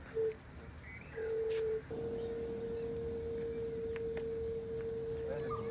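Electronic beep tone at one steady pitch: a short beep just after the start, a longer one about a second in, then one long unbroken tone from about two seconds in.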